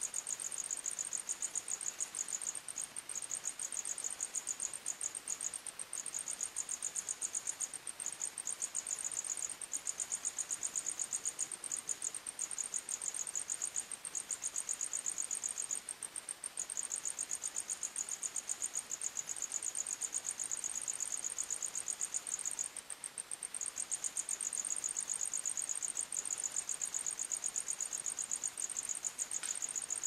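Crickets chirping in rapid, even pulses. Two high-pitched songs overlap, and the lower one breaks off briefly every few seconds while the higher one keeps going.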